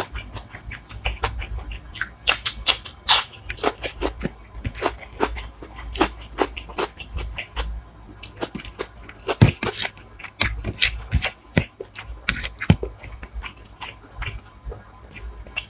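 Close-miked chewing and wet mouth clicks of a person eating, several sharp smacks a second, with a few louder ones scattered through.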